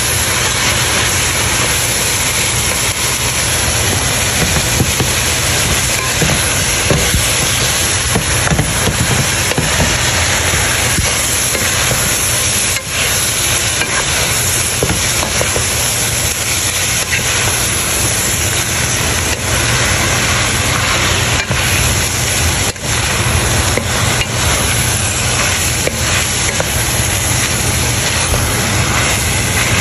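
Shredded meat and carrot strips sizzling in a nonstick wok, with a steady hiss and the light scrape and knock of a wooden spatula stirring them.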